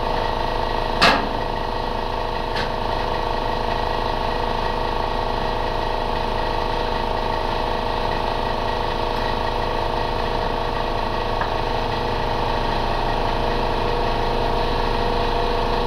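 Steady machine hum with a sharp click about a second in.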